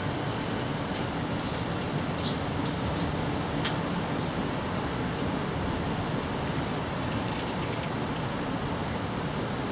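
Steady rain falling: an even hiss with scattered sharper drop ticks, the clearest about three and a half seconds in.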